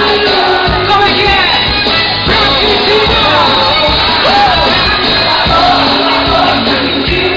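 A live band playing loud pop music, with singing over a steady drum beat.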